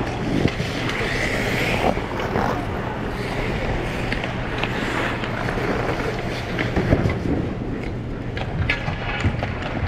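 Ice skates gliding and scraping on rink ice over a steady, noisy hum, with a few sharp knocks along the way.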